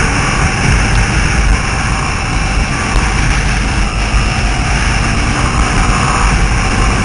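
Steady drone of a 50cc motor scooter riding along at speed, with wind rushing over the microphone.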